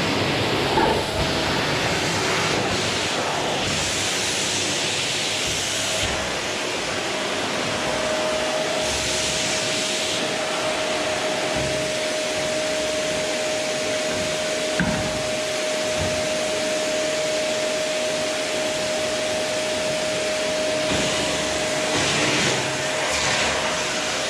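Household vacuum cleaner running steadily: a continuous whooshing noise with a steady motor whine. The hiss swells briefly now and then.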